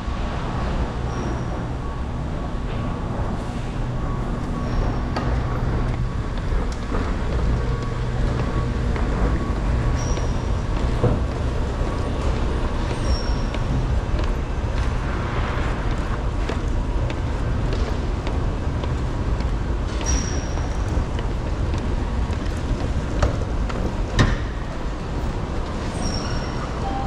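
Subway station escalator running during a long ride down: a steady low rumble and hum, with short high squeaks every few seconds.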